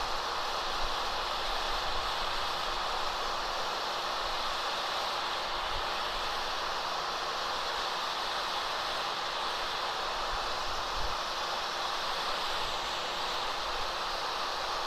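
Hot-air heat gun running steadily, an even rushing hiss of its fan with a faint steady hum underneath, as it melts an HDPE welding rod into an HDPE seam.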